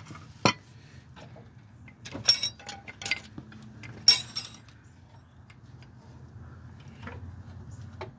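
Steel hand tools and hub-puller parts clinking and ringing against each other and the concrete floor. There is a sharp clink about half a second in, a few more from about two to three seconds, and another loud one around four seconds, followed by a couple of faint knocks.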